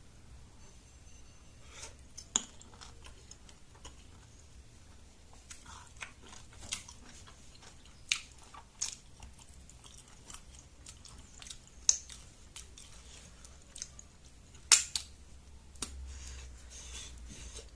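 A person chewing and biting rujak, a fruit salad made with buni berries: scattered sharp clicks and crunches at irregular intervals, the loudest about three-quarters of the way through.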